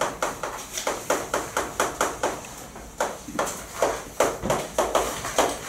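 Chalk tapping and scraping on a chalkboard as a fraction expression is written: a quick run of sharp clicks, about four a second, with a short lull a little before halfway.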